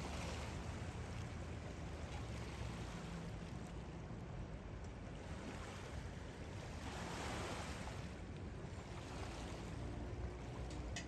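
Rushing water and wind with a low, steady motor hum underneath; the rush swells twice, near the start and about seven seconds in.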